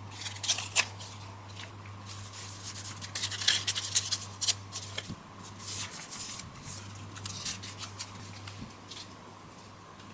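Scissors snipping paper, in short runs of crisp snips about half a second in and again around three to four and a half seconds in, with lighter paper handling between.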